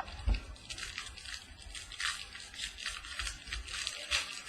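Trading cards and plastic card holders being handled: a quick, irregular run of light scratchy rustling and sliding, with a soft thump just after the start.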